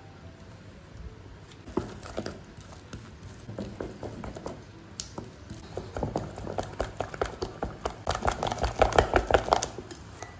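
A wooden spoon stirring thick mashed-banana and flour batter in a stainless steel bowl: wet squishing with irregular scrapes and taps of the spoon against the metal. The stirring gets faster and louder over the last few seconds.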